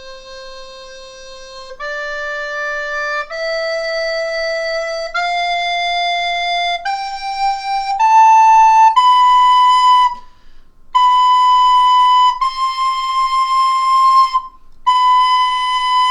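Plastic soprano recorder playing single held notes, each a second or two long, climbing a scale step by step from middle C to high C for a pitch test. The top notes near high C are played again three times with short breaks between.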